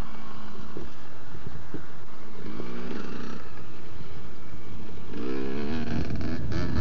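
Motocross motorcycle engines running and revving, with the pitch rising and falling in bursts about two and a half seconds in and again about five seconds in, over a steady rough rumble.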